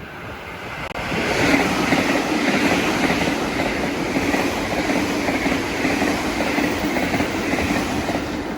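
Train running over jointed track, its wheels clattering rhythmically across the rail joints. The sound swells about a second in and stays loud.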